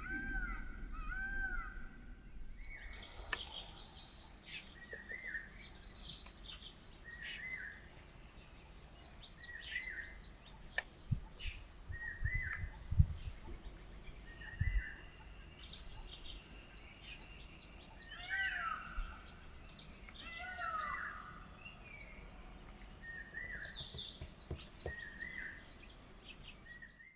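Mixed birdsong: crows cawing briefly at the start, then several small birds chirping and repeating short arched calls, with a steady high-pitched whine underneath. A few low thumps come in the middle.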